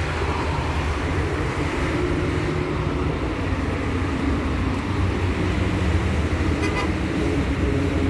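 City road traffic: cars driving past on a busy street, a steady low engine rumble.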